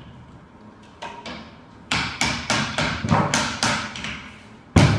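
Hammer blows on a window air conditioner's fan motor clamped in a bench vise, as its noisy bearing is being changed. Two light taps come about a second in, then a run of about eight strikes at roughly three a second, then one louder blow near the end.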